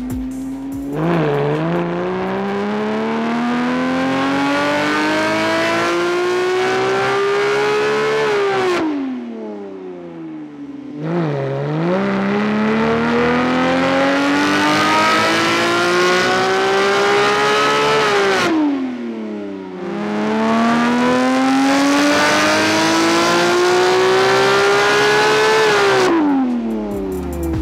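Porsche 991.2 GT3's naturally aspirated flat-six, fitted with a JCR titanium exhaust, making three full-throttle dyno pulls. On each pull the engine note climbs steadily for about seven seconds to the top of the rev range, then falls away as the throttle is released.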